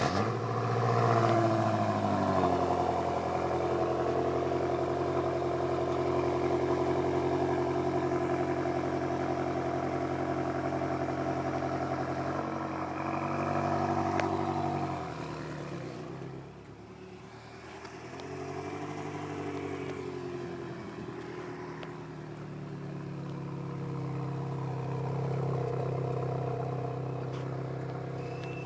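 BMW F10 M5's twin-turbo V8 starting up: it catches with a brief flare of revs, then settles into a steady idle. The engine note rises and falls gently a couple of times.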